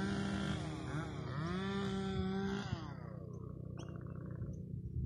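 A motor vehicle's engine running as it is ridden, its pitch rising and then dropping, with a steady rush of wind and road noise; the engine fades out about halfway through and a bird chirps briefly.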